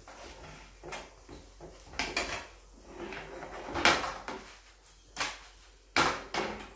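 Steel spatula scraping and knocking against an iron tawa as a paratha is pressed and turned, with the griddle shifting on the gas-burner grate: a string of sharp scrapes and clunks, the loudest about four seconds in.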